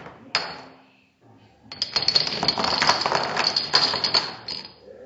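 A chain of dominoes toppling on a tile floor: a sharp click or two as the run is set off, then from about two seconds in a rapid clatter of dominoes knocking one another over and landing, lasting about three seconds and stopping suddenly.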